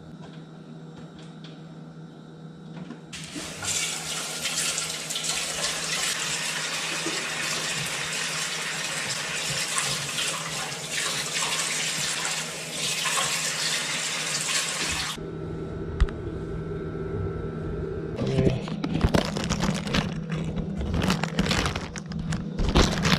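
Tap water running for about twelve seconds, starting and stopping abruptly. Then a run of irregular knocks and clatters near the end.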